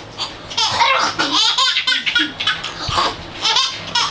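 Young children laughing and squealing, high-pitched and in quick repeated peals.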